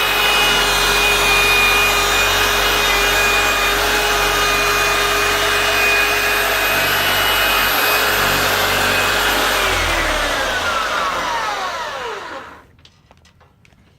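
Electric power tool running steadily at speed, then switched off about ten seconds in, its whine falling as it spins down and stops. A few faint ticks follow.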